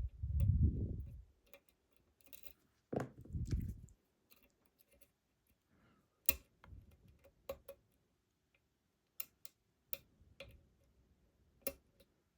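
Lock picks working inside a Yale 500 padlock: a handful of light, sharp metal clicks scattered about a second apart as the pins are picked. Two low, dull bumps of handling come in the first few seconds.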